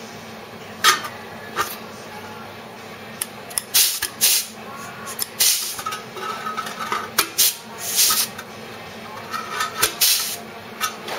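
Pneumatic air nibbler cutting a steel repair panel in short bursts, about ten in all, each a hissing chatter of air and metal that stops between cuts.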